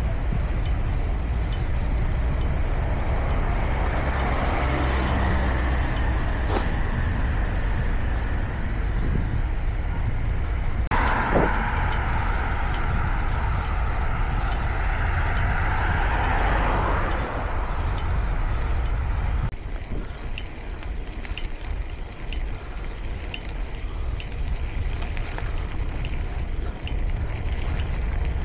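Wind rushing over a small action camera's microphone and tyre noise while riding a bicycle. A higher hum starts suddenly with a knock a little under halfway and lasts several seconds. About two-thirds of the way through, the noise drops to a lighter rush with faint, regular ticks.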